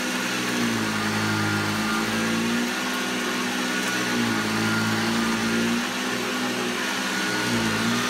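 Upright vacuum cleaner running on carpet. Its motor hum dips in pitch and comes back up about every two seconds as it is pushed back and forth.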